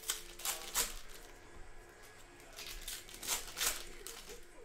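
Plastic cellophane wrappers of trading-card packs crinkling and tearing as they are ripped open by hand, in two spells: one near the start and another about three seconds in.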